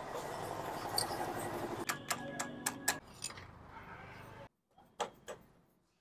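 A few sharp metallic clicks and clinks of hand tools on engine parts over a low steady background noise, then the sound cuts out to dead silence with two more brief clicks.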